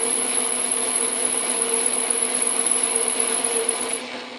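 Atlas metal lathe running with a steel shaft spinning in the chuck, a steady mechanical hum with a squeak. About four seconds in, the high thin tone cuts off and the running sound begins to die away as the lathe coasts down.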